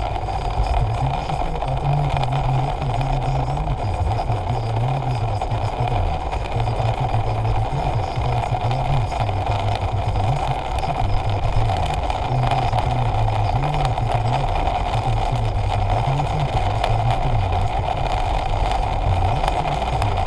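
Steady vehicle running noise with a low drone that wavers slightly, unbroken throughout.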